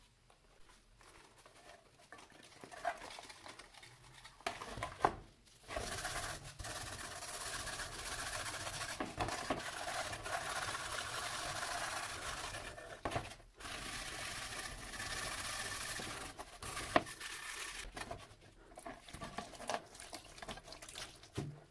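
Gloved hand scrubbing a gritty paste over a rusty steel trowel blade in a plastic tray: a steady scrubbing noise for about ten seconds in the middle, with a brief break. Scattered knocks and taps of handling come before and after it.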